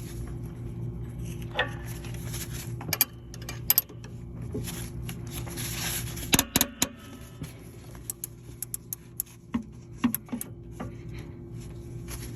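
Wrench clicking and clinking on the adjuster bolt of a bus's air-brake slack adjuster as it is backed off, in irregular metal clicks with a quick run of ticks about two-thirds of the way through, over a steady low hum.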